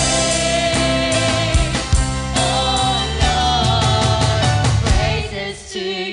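A woman singing a Christian praise-and-worship song into a microphone, accompanied by an electronic keyboard and an acoustic guitar.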